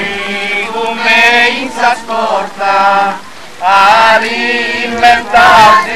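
Voices singing a religious chant together in long, held phrases with short breaks between them.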